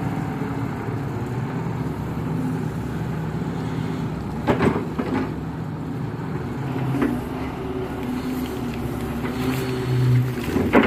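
Kato HD512E hydraulic excavator's diesel engine running steadily under load while the arm digs and swings mud, its note rising and falling with the work. There are a few short knocks from the bucket and boom, about four and a half seconds in, around seven seconds, and near the end.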